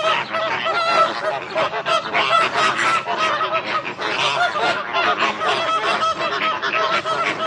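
A flock of flamingos honking: a dense, continuous chorus of many overlapping short, nasal calls.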